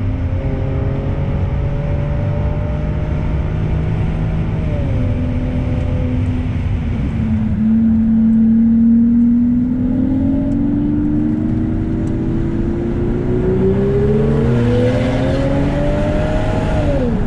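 Straight-piped BMW E66 760Li's V12 heard from inside the cabin under acceleration. The revs climb for about four seconds, fall away, run low for a few seconds, then climb long and steadily before dropping sharply near the end.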